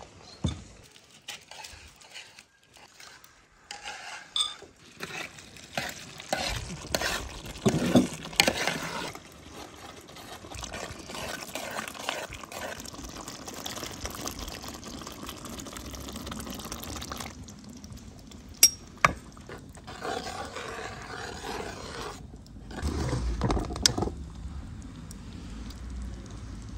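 Cooking in a large aluminium pot of tomato sauce: a spoon stirring, with knocks and a couple of sharp metal clinks against the pot, and beaten egg poured into the sauce.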